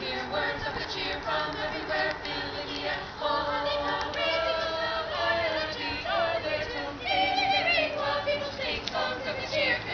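A small choir of carolers singing a Christmas carol unaccompanied, with several voices together on held, wavering notes.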